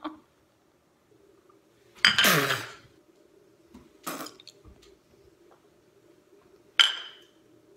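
Porcelain teacup handled and sipped from: a short sip just after four seconds in and a sharp clink with a brief ringing tone near the end. The loudest sound is a brief rushing noise whose pitch falls, about two seconds in.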